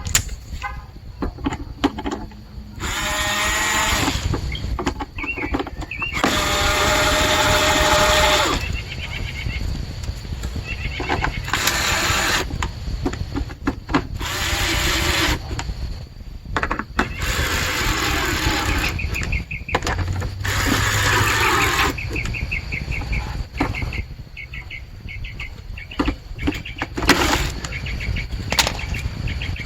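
Plastic parts of a GMT400 HVAC box being pushed and worked together by hand, in a series of scraping, squeaking stretches of a second or two each. Birds chirp faintly in the background.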